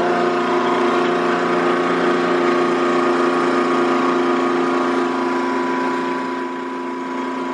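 Rainman watermaker pressure unit (high-pressure pump) running steadily while its pressure knob is slowly turned up, building pressure toward the green operating band on the gauge. The sound eases slightly in the second half.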